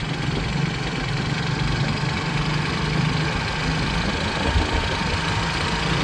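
Motorcycle engine running steadily at an even cruising speed, with a constant rush of wind and road noise.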